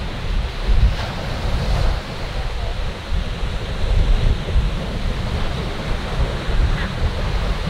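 Ocean surf washing steadily over rocks, with gusts of wind buffeting the microphone.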